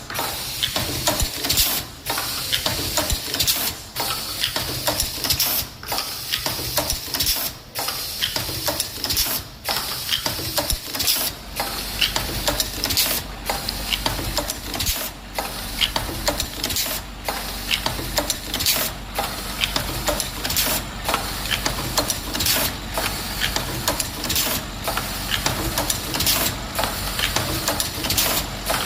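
Small automatic carton box forming and folding machine running: dense mechanical clatter over a steady high hiss, in a working cycle that repeats about every two seconds. A low steady motor hum joins about a third of the way through.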